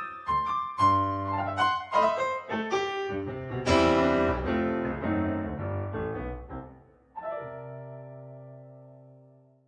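Closing piano music: a run of struck notes, then a final chord about seven seconds in that rings on and fades away.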